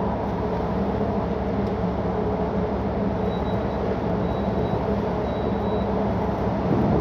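Steady low drone of a tanker underway: the ship's engine and machinery hum under a constant rushing noise.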